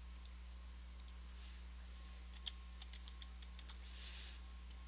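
Faint computer keyboard typing and mouse clicks, a scattered handful of light taps, over a steady low electrical hum.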